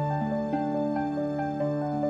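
Background music: an instrumental piece of held notes, the melody stepping to a new note about every half second over longer sustained low notes.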